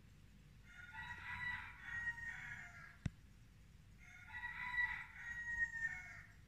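A rooster crowing twice, each crow about two seconds long, with a single sharp click between the two crows.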